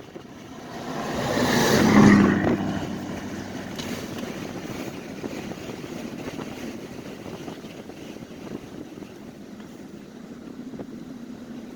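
Strong storm wind rushing, with one loud gust swelling up and peaking about two seconds in, then a steady rush.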